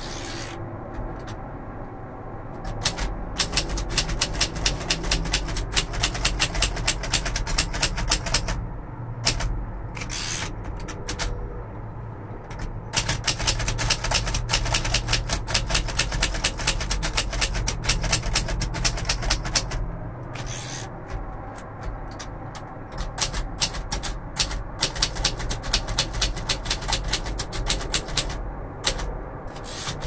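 1942 Royal Arrow manual typewriter being typed on: quick runs of sharp key clacks broken by short pauses, with the carriage return lever thrown near the start and near the end.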